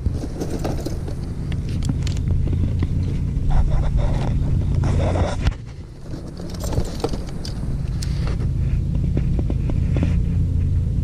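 Steady low rumble with scattered knocks and rustles as a freshly caught bass and a hanging scale are handled in a small boat. The rumble drops away briefly a little past halfway through.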